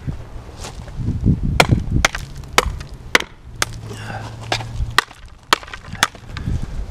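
Irregular sharp knocks and taps on wood, roughly two a second, over a faint low steady hum.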